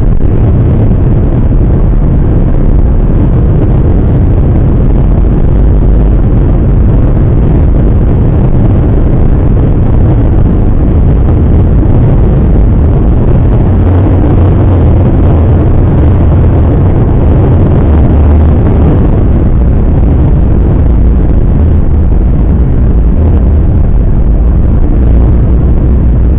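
A car driving at highway speed: a loud, steady low rumble of road and wind noise.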